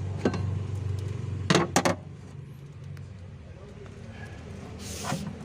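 Three sharp clicks or knocks in quick succession about a second and a half in, from parts being handled and fitted during an engine repair, over a steady low hum that stops at the same moment.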